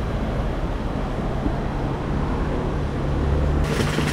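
City street noise: a steady low rumble and hum, turning brighter and hissier a little before the end.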